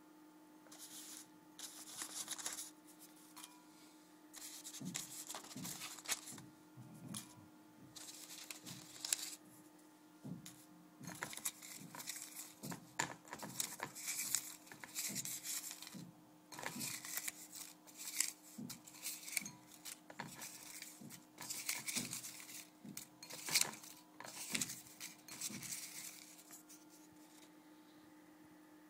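Small paper slips rustling and crinkling in bursts as a hand handles and stirs them in a glass bowl, with light clicks among the rustling.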